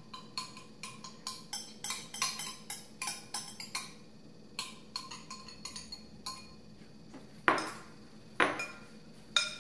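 A spoon scraping and tapping against a small glass bowl, working thick sauce out onto shrimp: quick light clinks for the first few seconds, then sparser taps. Near the end, three louder knocks about a second apart as the spoon stirs the shrimp in the serving bowl.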